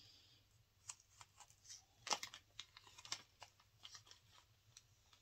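A quick run of small, light clicks and rustles from handling diamond painting supplies, the loudest about two seconds in.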